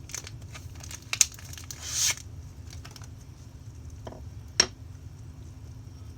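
Small screws, nuts and plastic parts handled by hand: a few sharp clicks, the loudest just after one second and again near the end, and a short rustle about two seconds in.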